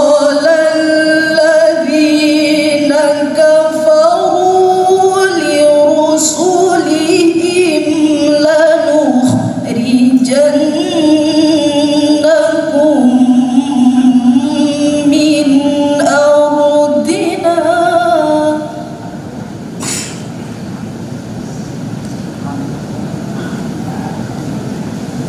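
A woman recites the Quran in the melodic tilawah style into a microphone, in long ornamented phrases held on sustained notes that slide and waver in pitch, with short breaths between them. The recitation stops about three-quarters of the way through, leaving a steady hiss and one click shortly after.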